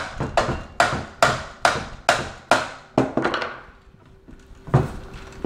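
Hammer blows, about two and a half a second, ramming through the sealed inside of a motorcycle muffler to open it up. The blows stop about three seconds in, and one more falls near the end.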